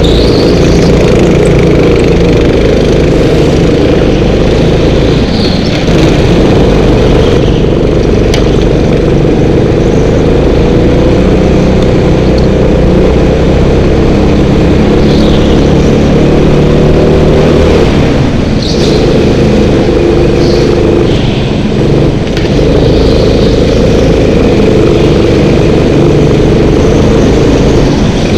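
Go-kart petrol engine running hard, heard close up from on board, its revs rising and falling again and again as the kart brakes and accelerates around the track.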